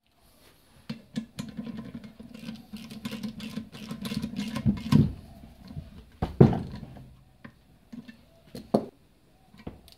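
Metal clicking and scraping of a bolt and a hand tool with a socket extension being worked into a Honda XL250 swingarm, with a few sharper knocks in the second half.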